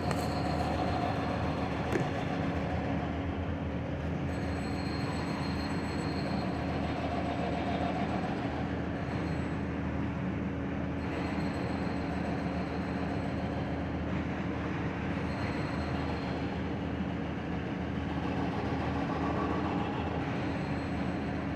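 Steady heavy-machinery noise with a constant low hum, and a faint high whine that comes and goes several times.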